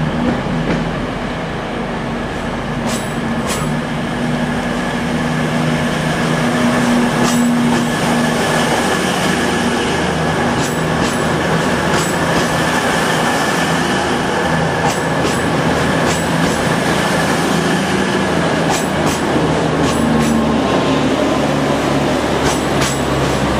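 A Voyager diesel multiple unit running slowly past at close range, its underfloor diesel engines droning with a steady whine above them. Sharp wheel clicks come in pairs every few seconds as the bogies cross rail joints.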